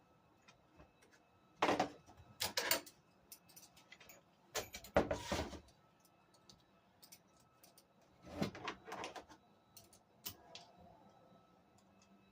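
Hand tools (an Allen wrench and a wrench) clinking and scraping on the deck bolts as a scooter deck is tightened down onto its frame: scattered small clicks with a few louder bursts of clatter.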